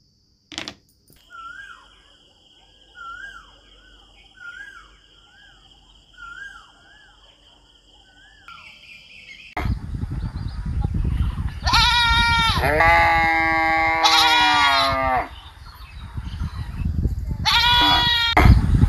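Faint short chirps, about one every one and a half seconds, over a steady high tone. From about halfway in, goats bleat over a louder noisy background: one long wavering bleat, then a shorter one near the end.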